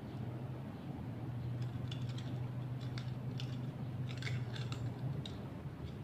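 Thin metal of an empty tin can being worked by hand, giving irregular small sharp clicks and crinkles, thickest about four seconds in, over a steady low hum.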